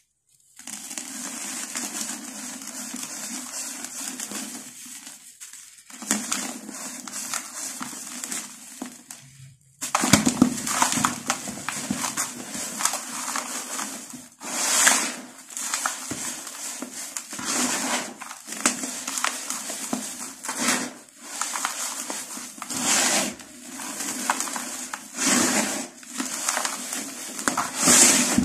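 Hands crushing and crumbling a moulded block of dry, gritty dirt and pressing and rubbing the dusty powder: a dry, gritty crunching. It grows louder about a third of the way in, swelling with each press.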